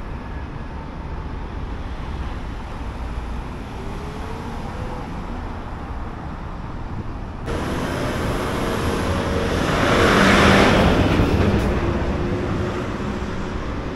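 Road traffic noise with a steady low rumble. After an abrupt change about seven and a half seconds in, a vehicle passes close: its noise swells to a peak about ten seconds in and then fades.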